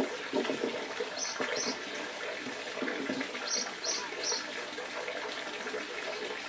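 Soft rustling and scraping as a ficus ginseng's bare roots are handled and pressed against a rock, over a steady hiss. Short high bird chirps come in pairs and threes, about a second in and again around four seconds in.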